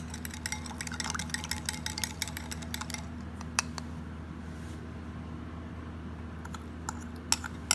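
Small metal spoon clinking rapidly against a glass bowl while stirring an oil dressing, easing off about three seconds in; a few more clinks near the end as the spoon scrapes the dressing out of the bowl. A steady low hum runs underneath.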